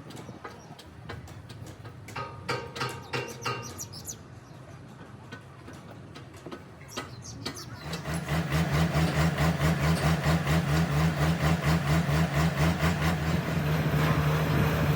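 HAMM road roller's diesel engine starting up about halfway through, then running steadily with a fast, even beat. Before it, a few scattered knocks.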